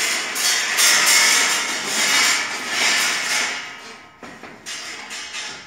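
Steel wire rod being drawn by hand through a manual wire straightener's rollers, a continuous metallic scraping and rattling. It dies down after about four seconds, followed by a few light clanks.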